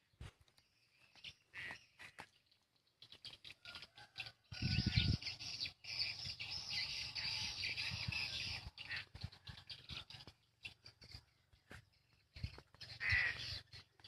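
Swiftlets twittering at a swiftlet house: rapid, high, chattering chirps, densest and loudest from about four and a half to nine seconds in. There is a brief low rumble about four and a half seconds in.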